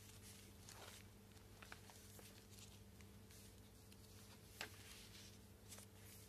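Faint rustling of stiff, stained pages of a handmade junk journal being handled and turned, with a small sharp click about four and a half seconds in, over a faint steady hum.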